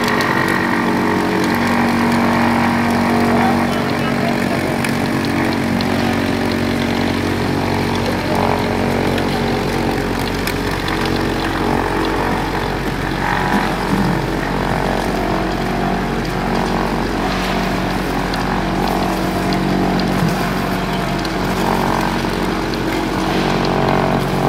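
Concrete vibrating beam screed (plate vibrator) running steadily as it is drawn over wet concrete: a constant motor drone with buzzing vibration.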